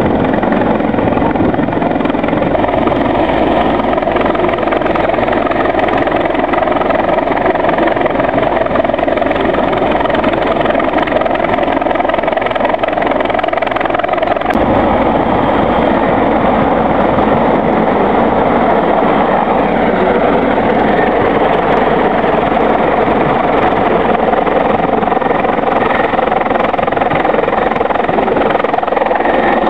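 Bell 412 helicopter, a twin-turbine machine with a four-bladed main rotor, flying close by. Its rotor and turbine noise runs loud and steady, changing a little about halfway through.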